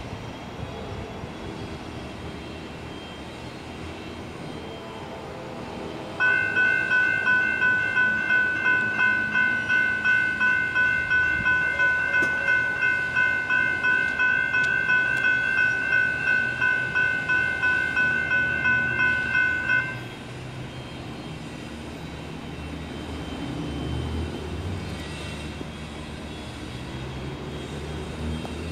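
Railroad crossing warning bells, electronic GS E-Bells, ringing in a rapid, even pulse of about two to three strikes a second as the crossing activates for an approaching train. They start about six seconds in and cut off suddenly some fourteen seconds later. Before they start, a faint train horn sounds in the distance.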